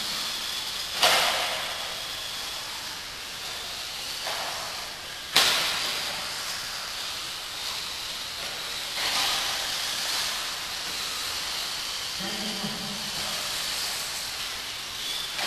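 Radio-controlled off-road buggies running on a dirt track, giving a steady high hiss. Two sharp knocks stand out, about a second in and about five seconds in.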